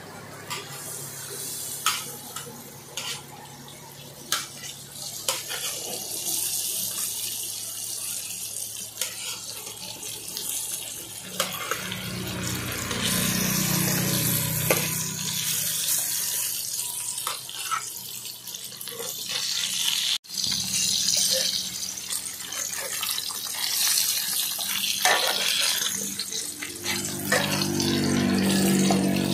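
Pork slices sizzling in hot oil in a steel wok, a steady hiss, with a metal ladle scraping and clicking against the wok now and then as the pieces are turned. A low hum swells in twice, about halfway through and near the end.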